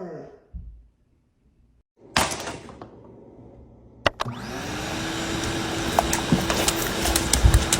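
A short rush of noise about two seconds in, then a click, and a small motor switches on and runs steadily with a hum that rises briefly and then holds.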